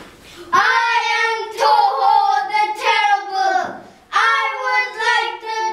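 A child's voice singing a song in long held notes, pausing briefly about four seconds in and then going on.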